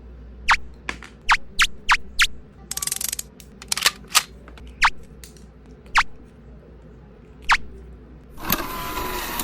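Sharp clicks and taps of hand tools and plug parts being handled, about a dozen in all, with a short rattling burst about three seconds in and a louder, longer rattle of about a second near the end.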